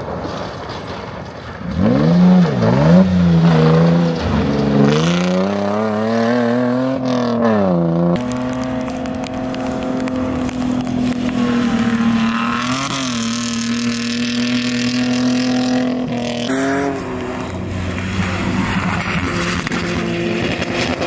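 Off-road race vehicle engines revving hard, the pitch swinging up and down for the first several seconds, then held at a steady high note. The sound changes abruptly about eight and sixteen seconds in.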